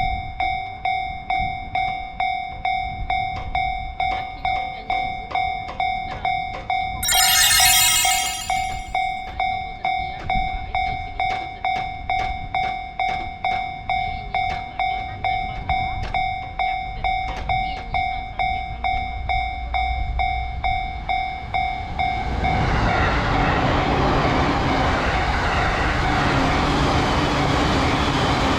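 Japanese railroad crossing warning bell dinging steadily about twice a second. About seven seconds in, a train horn sounds for a couple of seconds. From about 22 seconds the dinging gives way to the loud, steady running noise of a train passing through the crossing.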